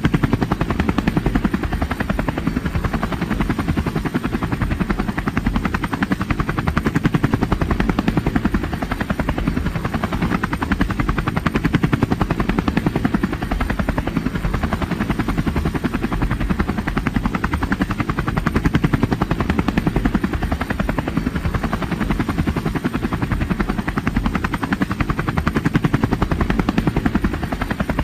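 Helicopter rotor chopping in a fast, steady pulse over a low engine rumble, with no change in pitch or level.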